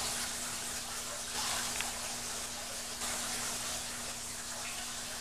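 Aquarium filter running: a steady trickle and hiss of moving water with a constant low motor hum.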